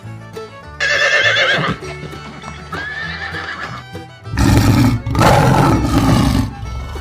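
Horse neighing, a whinny with a quavering pitch about a second in, followed by a weaker call and then a louder rough noisy stretch from about four and a half to six and a half seconds. Background music with a steady low bass line plays under it.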